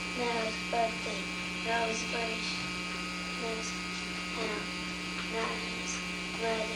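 Steady electrical hum with a constant thin high whine, the background of an old analog video recording. Short, faint voice sounds come and go every second or so.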